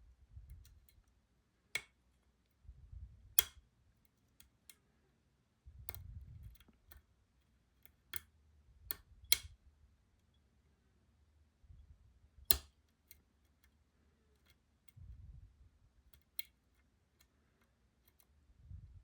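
A lock pick and tension tool working the pins of a Robur 2391 lock, giving a string of small, sharp metal clicks at uneven intervals, some of them pins setting at the shear line. Soft low rumbles of hand handling come in between.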